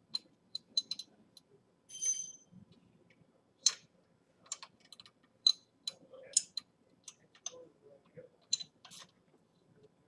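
Scattered sharp clicks from a socket wrench working the exhaust flange nuts, a dozen or so at uneven intervals. There is a brief ringing metallic clink about two seconds in.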